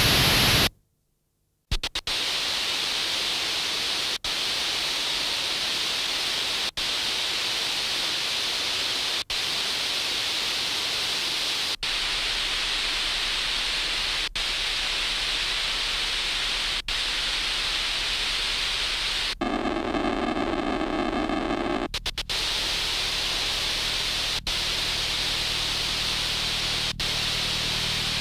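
Static-like noise from an experimental electronic noise track: a steady hiss that cuts out briefly about every two and a half seconds, after a short silence about a second in. A low hum enters about halfway, and for a couple of seconds near the end the noise turns into a pitched, buzzing drone.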